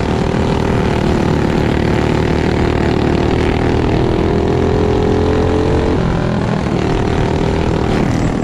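Flat kart's small engine running hard at high revs under racing load, the note climbing slightly, then easing off briefly about six seconds in and picking up again.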